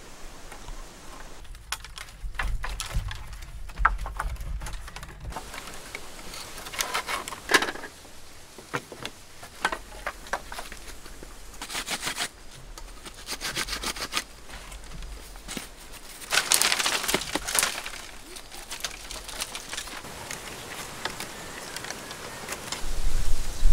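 Bamboo poles and slats knocking and clattering against each other as they are handled, laid in place and lashed together, with scattered sharp clicks and crackles. The knocks come irregularly, in thicker clusters a few times.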